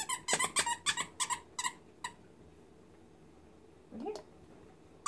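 A quick run of about seven sharp squeaks over the first two seconds, then a short rising whine about four seconds in.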